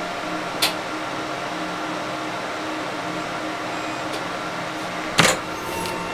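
Steady fan hum of a running Epilog Fusion M2 laser engraver, with a small click early and a louder sharp click about five seconds in as the lid is lifted.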